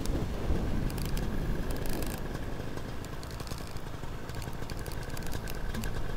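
Paramotor engine running steadily in flight, a constant drone, with wind rumble on the microphone.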